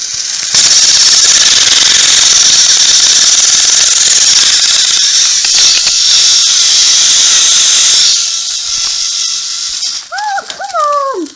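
Motorized toy train engine running flat out on plastic track: a loud, steady hissing whirr with a faint whine, starting suddenly and cutting off about eight seconds in. Two short falling squeaks follow near the end.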